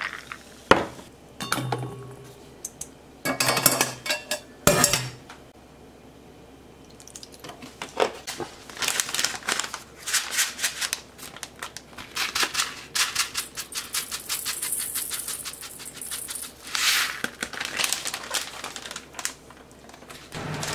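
Kitchen clatter from a stainless steel bowl and utensils. A few separate knocks and clinks come in the first five seconds; after a short lull, a long run of quick small ticks and rattles follows.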